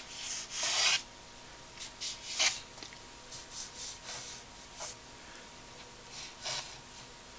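Ruling pen scratching across watercolour paper in a string of short, irregular strokes as straight lines are ruled.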